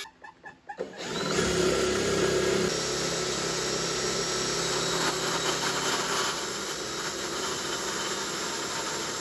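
DeWalt cordless circular saw running steadily and cutting wood, starting about a second in.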